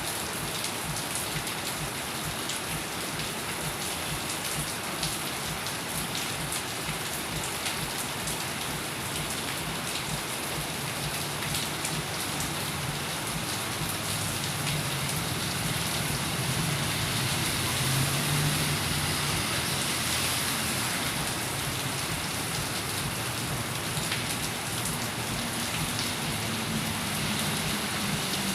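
Steady rain falling and pattering on surfaces, an even hiss with fine drop crackle. A low rumble builds underneath from about halfway through.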